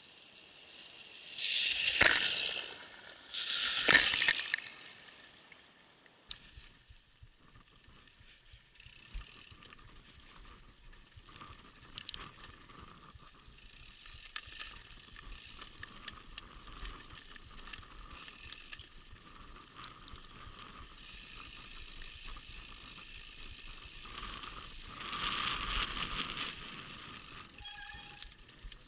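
Two mountain bikes passing close to a ground-level microphone one after the other, about two seconds apart, each a short loud rush of tyres through the muddy puddle. Then a mountain bike ridden over a rutted dirt track: steady tyre noise with drivetrain and frame rattle over the bumps, louder near the end.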